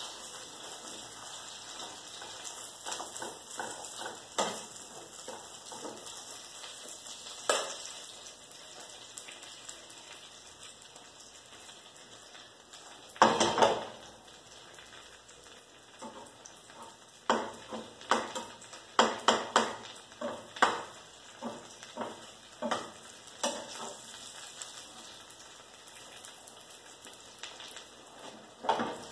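An omelette frying in a pan with a steady faint sizzle, while a spatula scrapes and knocks against the pan now and then. There is a louder clatter about halfway through and a run of quick knocks in the second half.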